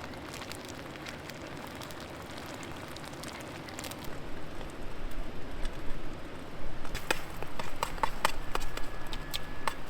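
Eggs cooking for a camp breakfast: a steady hiss, then from about four seconds in a run of sharp clicks and taps like a utensil working in the pan, quickening toward the end.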